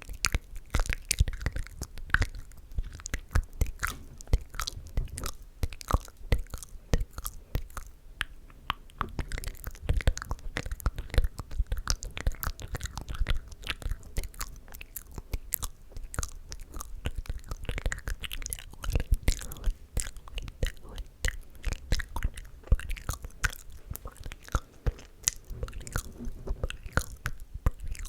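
Close-miked ASMR mouth sounds: a continuous, irregular stream of wet clicks and smacks from the lips and tongue.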